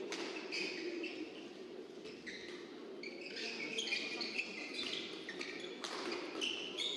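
Badminton shoes squeaking on the court mat: many short, high chirps that come thicker from about halfway through, with a few sharp knocks and a steady murmur of the hall behind them.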